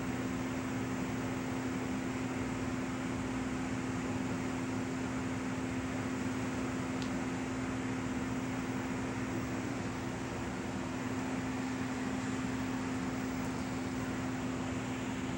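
Faulty VHS tape playback audio: a steady electronic tone held without a break over static hiss, the tape's beeping-noise fault.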